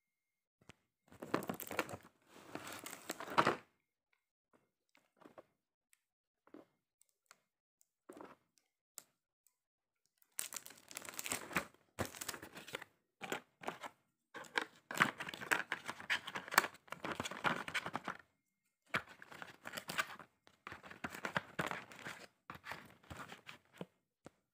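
Plastic shrink-wrap being torn and crumpled off a cardboard box, in three long stretches of tearing and crinkling with a few light clicks in between.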